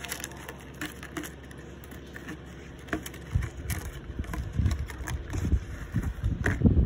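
Clear plastic container crackling and clicking as it is handled. About three seconds in, low rumbling bumps of handling noise set in and grow louder.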